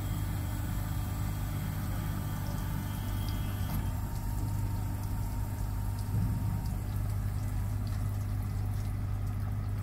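Steady low machinery hum with a constant noisy wash over it.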